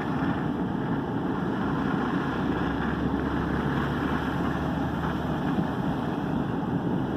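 Steady engine and tyre noise from inside a moving car's cabin, with a low hum that fades about five and a half seconds in.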